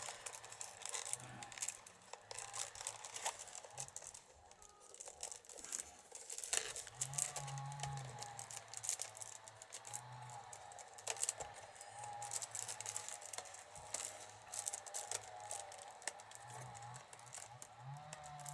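Wicker rods and twine crackling and rustling in the hands as a basket is woven, with scattered clicks. A low hum drones on and off behind it in stretches of a second or two.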